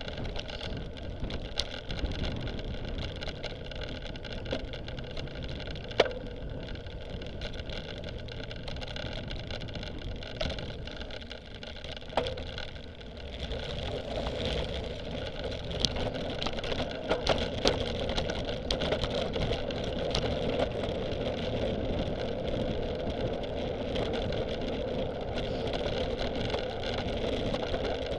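A cyclocross bike ridden fast over rough ground, heard through a camera mounted on the bike: a steady rolling rumble of tyres and drivetrain with scattered knocks and rattles over bumps. It gets louder about halfway through as the bike moves from grass onto a gravel path.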